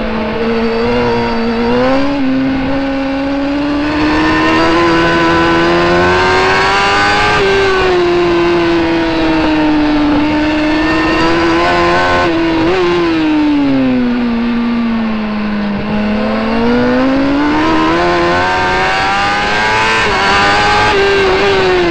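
Racing superbike engine heard onboard at high revs, its pitch climbing and falling through the corners with a few quick drops at gear changes, over wind rush. Near the end the pitch falls away as the bike slows.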